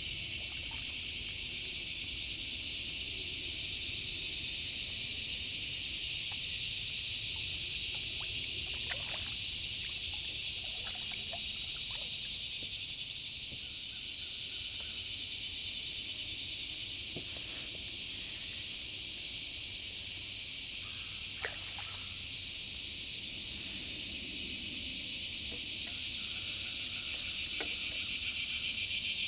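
Steady high-pitched chorus of summer insects droning without a break, with a few faint clicks and small water sounds.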